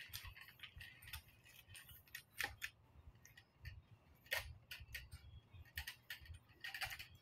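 Faint, irregular clicks and light knocks from a ring light's plastic ring and mounting bracket being handled and fitted, with two sharper clicks about two and a half and four and a half seconds in.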